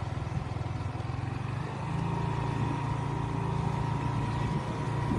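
Motor vehicle engine running steadily, a rapid low throb with a faint steady whine above it.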